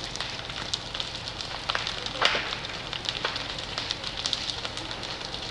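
A house fire crackling and popping, with irregular sharp snaps over a steady hiss and one louder pop about two seconds in.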